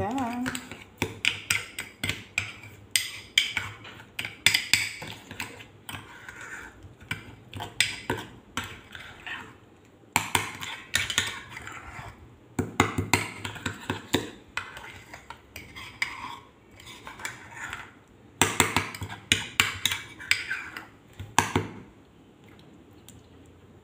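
Metal spoon stirring a thick mayonnaise sauce in a small bowl, with repeated clinks and scrapes against the bowl in bursts and short pauses.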